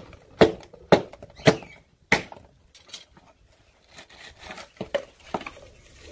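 Machete chopping into the fibrous husk of a dry coconut, four quick strikes about half a second apart, then the loosened husk being torn off the nut by hand with cracking and rustling of fibre.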